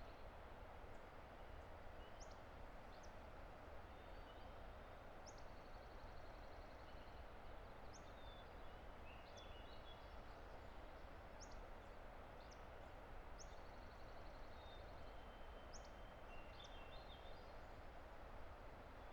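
A distant river rushing steadily, faint and even. Over it, birds sing short, high, rising chirps every second or two, with a few buzzy trills.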